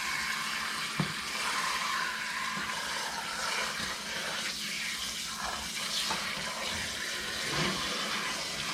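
Water running steadily from a kitchen tap, filling a bowl of raw chicken pieces for rinsing, with a light knock about a second in.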